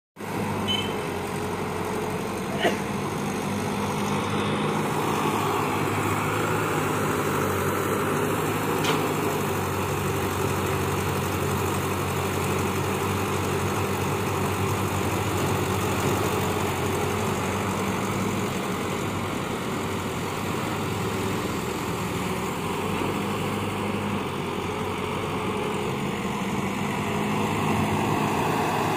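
Caterpillar hydraulic excavator's diesel engine running steadily while the machine digs, with a sharp knock about three seconds in.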